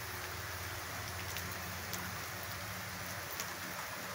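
Steady rain falling: an even hiss with a few faint scattered drop ticks.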